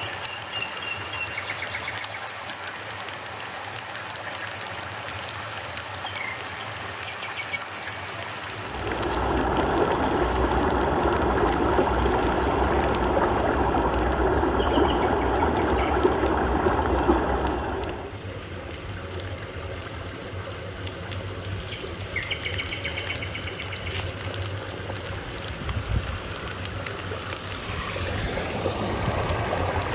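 Water trickling and running, with a few short bird chirps now and then. The rushing grows louder for a stretch of about nine seconds in the middle, then drops back.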